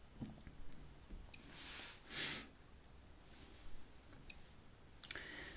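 Faint, scattered taps of fingertips on smartphone touchscreens, about half a dozen light ticks, with a soft rush of noise about two seconds in.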